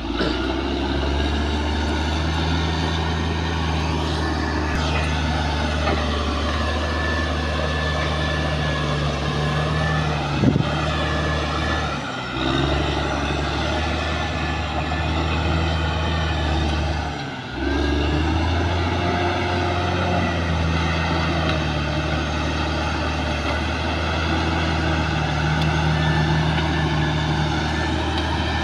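Caterpillar D6R XL bulldozer's diesel engine running under working load, its pitch rising and falling as the load changes. The engine briefly drops off twice and picks back up, and there is a single sharp knock about ten seconds in.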